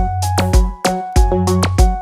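Electronic house-style beat: deep kick drum hits, a bass line, sharp clicky percussion and repeated synth chord notes.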